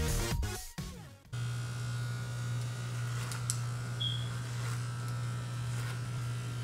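Electronic music for the first second or so, cutting off; then electric hair clippers running with a steady buzz as they cut short hair.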